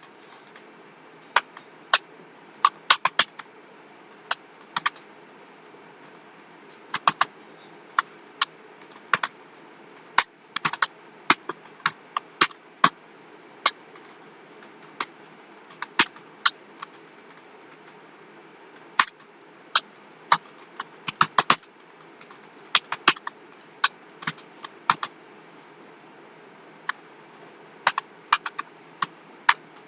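Computer keyboard being typed on in slow, irregular key clicks, some single and some in quick runs of two or three, with pauses of a second or two between them.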